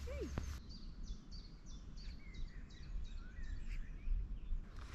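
Songbirds singing in the background, one repeating a short, high falling note a couple of times a second, over a steady low rumble.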